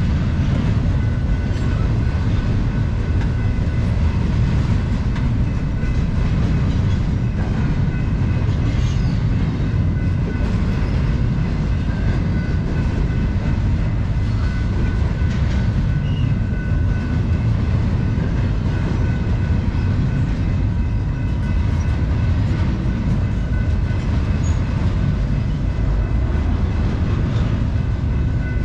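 Long intermodal freight train rolling past at steady speed: a continuous heavy rumble of steel wheels on rail, with faint clicks of wheels over rail joints and a few thin high steady tones running through it.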